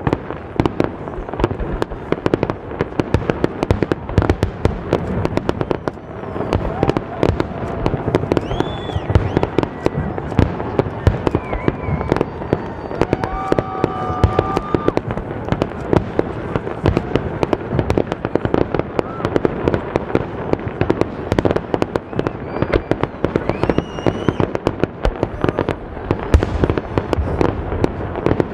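Fireworks display: a continuous barrage of aerial shells bursting in rapid, overlapping bangs and crackles, several a second.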